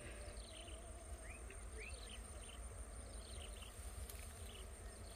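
Faint rural outdoor background: a low steady rumble under a soft haze, with a few short rising chirps, two of them close together in the first two seconds.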